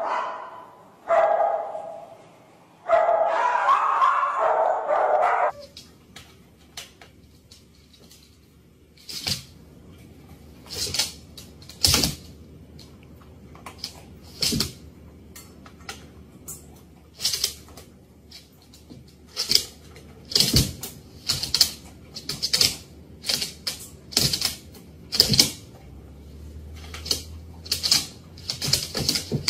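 A Great Dane vocalizing in drawn-out barks, the longest lasting a couple of seconds and ending about five seconds in. After that come scattered sharp clicks and taps.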